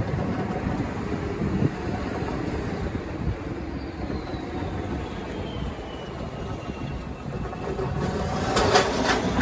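Cars and trucks driving over a railroad grade crossing. Near the end, a pickup towing a flatbed trailer clatters as its wheels bang over the rails.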